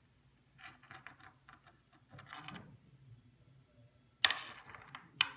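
Small clicks and rustles of a wire bangle and a large stone being handled on a tabletop, with a sharp knock about four seconds in and a few more clicks near the end.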